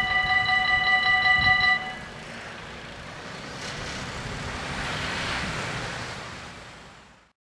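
Electronic level-crossing bells of a Dutch AHOB crossing ringing steadily, then stopping abruptly a little under two seconds in as the barriers finish rising. A broad rushing noise then swells and fades away.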